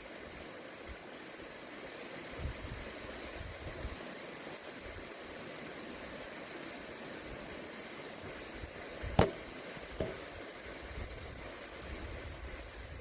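Steady hiss of light rain during a weak thunderstorm, with a sharp tap about nine seconds in and a fainter one a second later.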